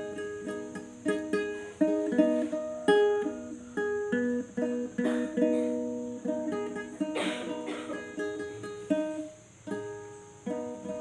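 Six-string nylon-string guitalele being plucked slowly and unevenly, single notes and small chords a few per second, each ringing and fading: a beginner working through chord shapes.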